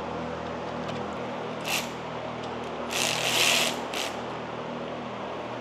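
Ratchet wrench clicking in short quick runs, a brief one about two seconds in and a longer, louder one around three to four seconds, as it runs in a bolt on the Ecotec engine's timing chain guide. A steady fan hum underneath.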